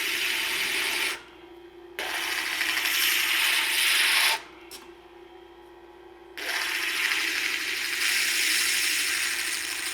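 Turquoise stone being ground wet against a spinning 180-mesh diamond disc on an Ameritool universal grinder: a gritty rasp over the machine's steady hum. The rasp breaks off twice, briefly about a second in and for about two seconds midway, while the hum carries on.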